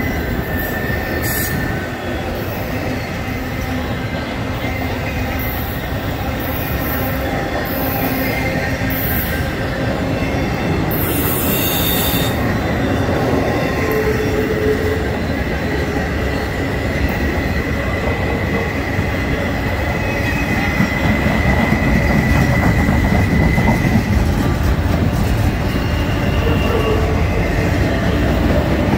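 Empty intermodal flatcars of a freight train rolling past close by: steel wheels on the rails with a continuous rumble and a steady high squeal, getting somewhat louder after about twenty seconds.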